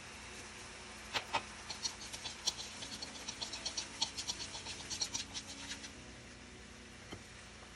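Chopped fresh turmeric frying in hot oil in a pan while chopsticks stir it. A run of small crackling pops and spatters starts about a second in and dies away before six seconds, led by two sharper taps.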